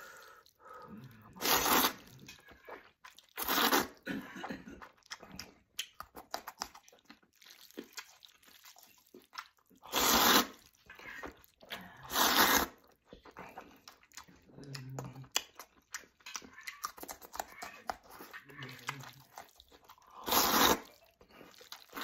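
Mouth-close eating of thick zhajiangmian wheat noodles: five loud slurps as mouthfuls of noodles are sucked in, with chewing between them.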